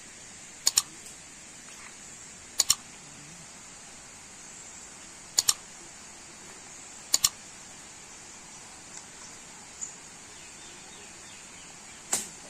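Computer-mouse click sound effects, four quick double clicks a couple of seconds apart, over a steady high-pitched hiss; one more sudden sound comes near the end.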